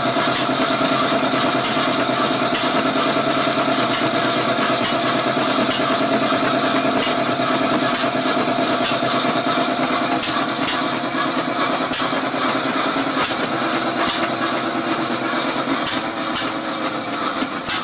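1880s Eagle ten-saw cotton gin running under belt drive from a hit-and-miss engine: a steady mechanical whir with a continuous hum and light irregular clicking, easing slightly near the end.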